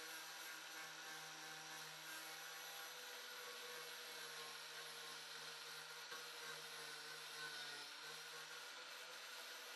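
Angle grinder fitted with a flap disc grinding rust off a car's rear wheel arch, back to bare metal. The motor runs steadily, with a brief dip in pitch about eight seconds in as the disc bears down.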